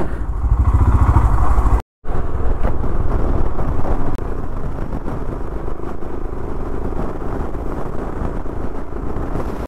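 Royal Enfield Himalayan's single-cylinder engine running while the motorcycle is ridden, mixed with wind and road noise. The sound cuts out for a moment about two seconds in and drops a little in loudness just after four seconds.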